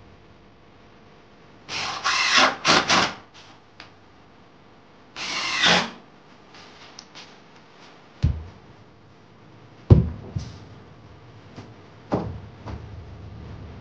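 Hand woodworking: a few short scraping strokes on wood, then several separate knocks with a dull thud.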